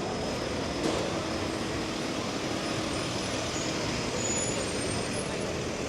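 Wet city street traffic: a heavy vehicle's engine running close by with a steady low hum, over a constant rumble of traffic and tyres on wet road, with a short sharp sound about a second in.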